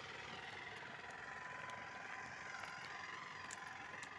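Faint steady outdoor background noise, with a faint high steady tone and a couple of light clicks near the end.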